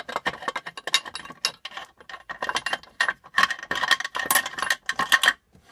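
Dense, irregular metallic clicking and clinking of metal engine parts and tools being handled against each other, with a faint ringing. It stops suddenly near the end.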